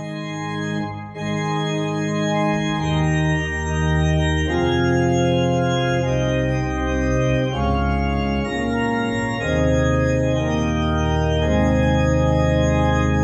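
Organ playing a slow postlude of held chords, the chords changing every second or two, with a deep bass line coming in about two and a half seconds in.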